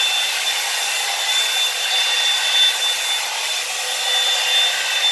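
Revlon One-Step hot-air brush (hair dryer and volumizer) running steadily: a rush of blown air with a constant high whine from its motor.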